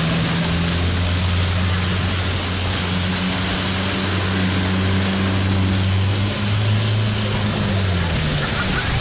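Long-tail boat engine running steadily at speed, over water rushing and spraying from the wake along the hull. The engine note shifts slightly in pitch a few times.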